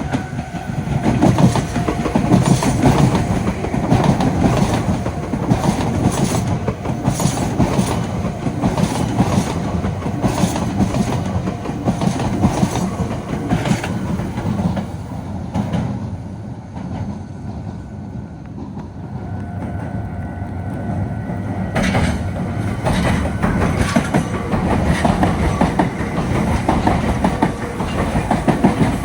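Meitetsu electric trains running over the junction's switches, the wheels clacking rapidly over rail joints and points. The clatter eases about halfway through, then builds again as the next train comes through.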